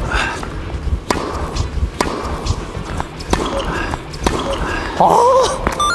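Tennis rally on an indoor hard court: sharp racket strikes and ball bounces about once a second, ringing in a large hall. Near the end comes a short pitched squeal.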